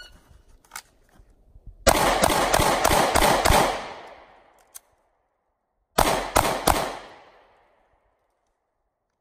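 A shot timer beeps, then a handgun fires six quick shots, pauses about two and a half seconds, and fires three more quick shots. The pause is the shooter clearing a malfunction: a bullet nosedived while feeding.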